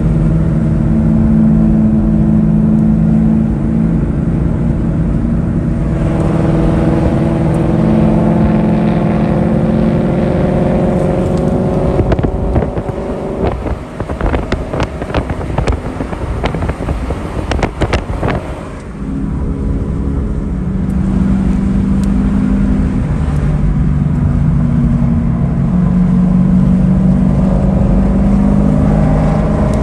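Sports car engines and exhausts heard from inside a moving car on a twisty mountain road. The engine note climbs as the car accelerates. Near the middle comes a run of sharp cracks while the sound drops off. Then the engines settle back to a steady drone.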